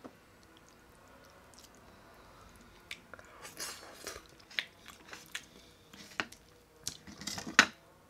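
A person slurping and chewing soupy rabokki noodles, with wet mouth clicks and smacks. It is quiet for about three seconds, then a run of slurps and chews follows, loudest near the end.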